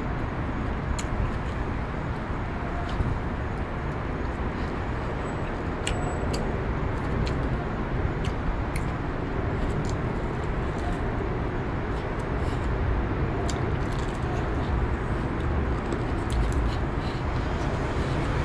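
Steady outdoor background noise, a low rumble with scattered faint clicks and ticks.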